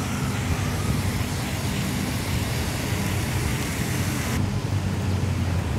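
Steady outdoor background noise: a low rumble and hum with a hiss over it. The hiss drops away about four seconds in while the rumble goes on.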